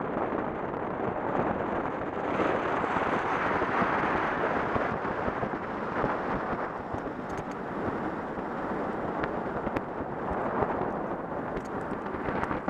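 Wind rushing over the microphone of a camera in a moving car, with the car's road noise underneath; the rush swells and eases every few seconds.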